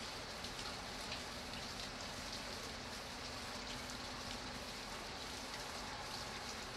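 Steady rain falling, a continuous hiss dotted with the patter of individual drops.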